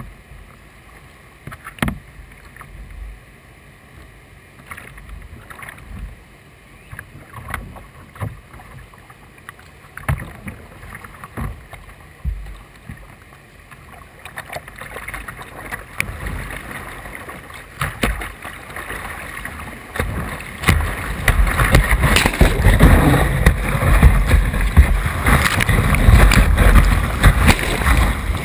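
Kayak paddle strokes dipping and splashing on calm river water. From about two-thirds of the way in, a steady rush of whitewater builds and becomes loud as the kayak enters the rapid and water breaks over the bow.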